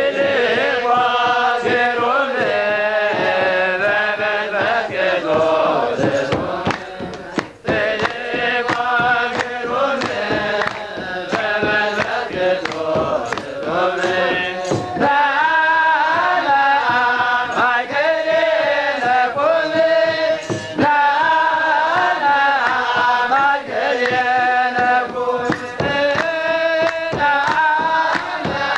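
Eritrean Orthodox Tewahedo clergy chanting together in long, wavering sung phrases, with hand claps sounding through the chant.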